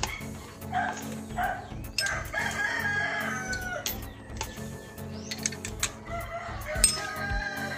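A rooster crowing twice, each crow long and drawn out, with scattered sharp clicks over a low steady background.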